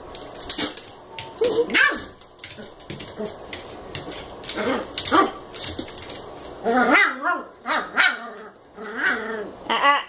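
Small dogs at play, an American Eskimo puppy and a Chihuahua mix: short sharp barks and yips about two and five seconds in, becoming more continuous growly play vocalizing from about seven seconds, with light clicking throughout.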